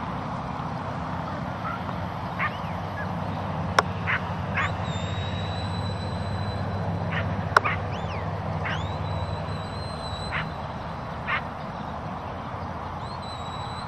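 A shepherd's whistle giving commands to a working sheepdog: three high whistles, each rising and then held, about 4.5 seconds in, about 9 seconds in and near the end. Short sharp calls and two sharp clicks come in between, over a steady low rumble.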